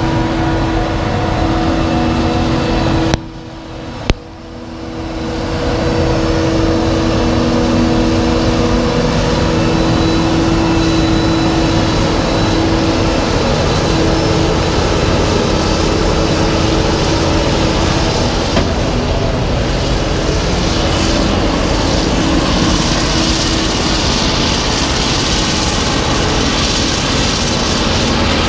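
Heavy harvest machinery running steadily, a diesel engine drone carrying a steady hum. About three seconds in the sound drops away sharply, a single click follows a second later, and the drone builds back over the next two seconds. A hiss grows stronger through the last third.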